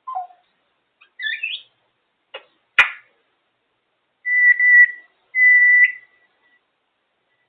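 African grey parrot making a few short chirps and a sharp click, then two steady, level-pitched whistles about a second long each in the second half.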